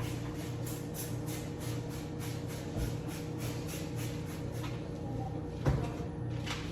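Trigger spray bottle squirted over and over, about three quick sprays a second, over a steady low hum. A single thump comes near the end.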